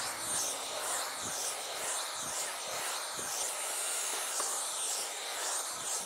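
Stick vacuum cleaner running steadily on a rug: a whooshing suction noise with a thin high whine.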